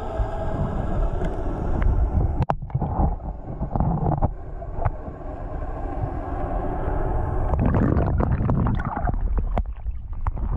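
Low rumble of nearby boat engines heard underwater, carried through the river water, with scattered clicks and crackles over it.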